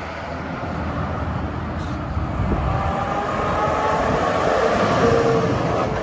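A heavy vehicle passing close by: a steady rush of noise that grows louder to a peak about five seconds in, with faint steady tones joining it about halfway through.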